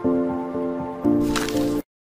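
Short intro jingle: electronic music with two held chords, the second coming in about a second in, and a brief swish near the end before it cuts off suddenly.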